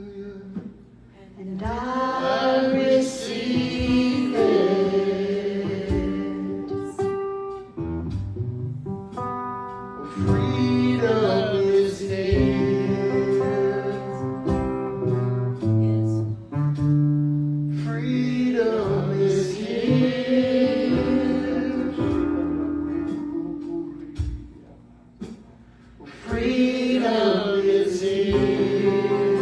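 Gospel worship music: singing over guitar accompaniment, in long sung phrases that start roughly every eight seconds.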